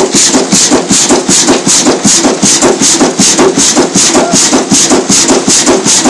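Stationary diesel engine driving the sawmill's flywheel and belt, running with a loud, regular beat of about two to three strokes a second.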